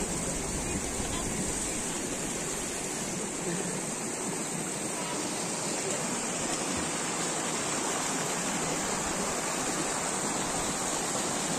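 Steady rushing of a rocky mountain river as it flows over boulders.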